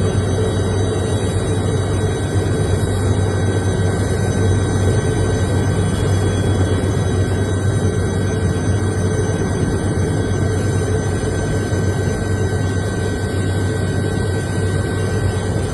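Helicopter turbine engine and rotor noise, a steady, unbroken drone with a constant low hum.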